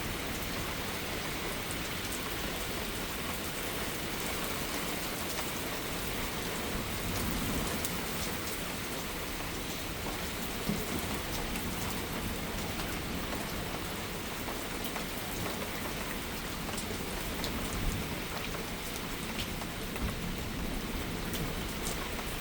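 Steady rain falling and hitting surfaces in a thunderstorm, an even hiss with a few sharp drip ticks scattered through it.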